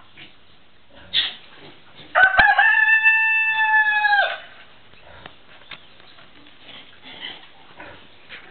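A rooster crows once: one call of about two seconds, held at a steady pitch and trailing off at the end.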